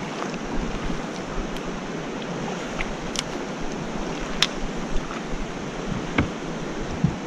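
Steady rush of flowing river water around a drifting raft, with a few sharp clicks and knocks, the crispest about three seconds and four and a half seconds in, and duller thumps near the end.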